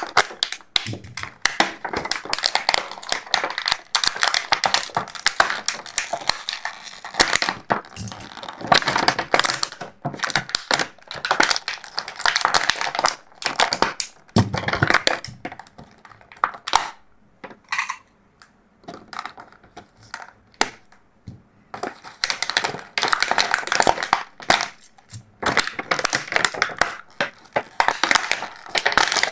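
Plastic toys and packaging being handled: dense crackling and clicking in runs, thinning out to scattered clicks for a few seconds past the middle.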